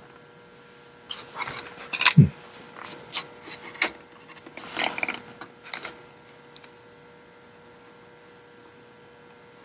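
Clicks, knocks and rattles of the plastic case and keys of an Apple Extended Keyboard II (M3501) being tipped up and handled partway through disassembly, with a thump about two seconds in as the loudest sound. The handling stops about six seconds in, leaving a faint steady hum.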